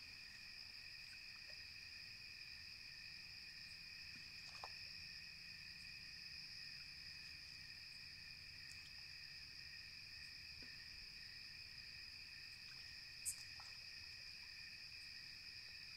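A steady night chorus of crickets, several unbroken high trills at different pitches. A single sharp click sounds near the end.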